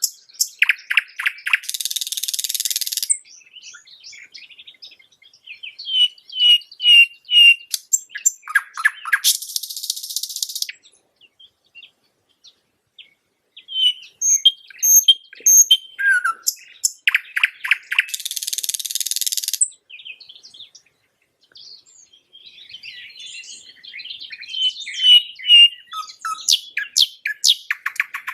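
Nightingale singing in four phrases of quick repeated whistled notes and harsh rattling trills, with pauses of two to three seconds between them.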